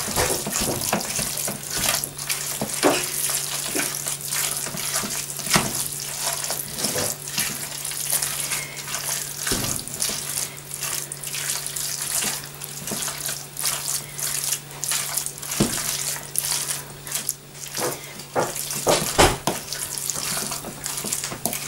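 Wooden spoon working raw minced beef and chopped onion in a plastic bowl: repeated wet squelching and scraping strokes, with a steady low hum underneath.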